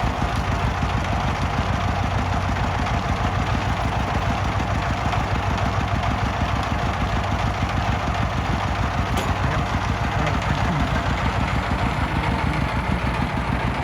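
Diesel engine running steadily at a constant pace, with a fast, even chugging.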